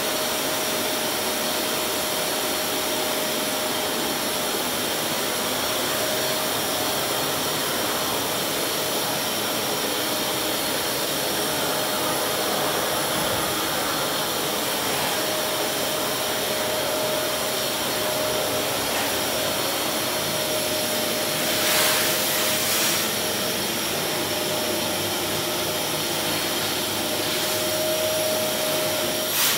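Steady ventilation fan noise, an even rush of air with a faint steady hum under it, from an electric pizza oven in operation. Two brief louder rushes come about two-thirds of the way through.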